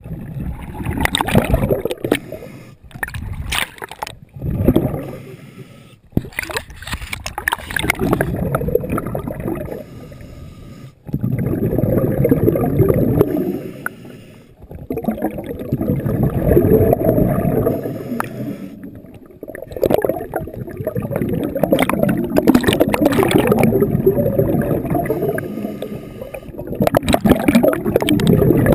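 Muffled water noise picked up by a camera held underwater: sloshing and gurgling that swell and fade in spells of a few seconds, with sharp clicks and knocks scattered through.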